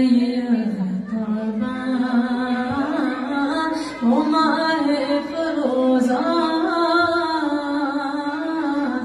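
A woman singing a devotional naat unaccompanied, in long held notes that slide between pitches, with a short break about four seconds in.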